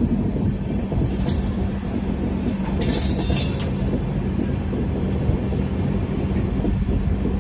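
Express passenger train running along the track, heard from an open coach door: a continuous rumble of wheels on rails with a steady low hum, and a brief hiss about three seconds in.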